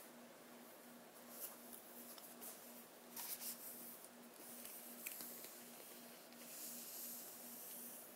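Faint rustling of paper as book pages are turned and smoothed flat by hand, with a few soft crackles.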